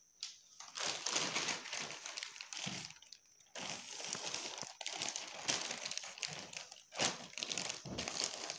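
Clear plastic packaging bag crinkling and rustling as it is handled, with a brief pause about three seconds in.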